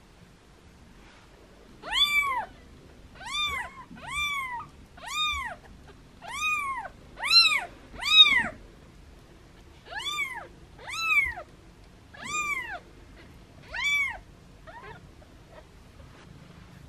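A newborn kitten meowing over and over, about a dozen short high-pitched mews, each rising then falling in pitch, with the last one faint.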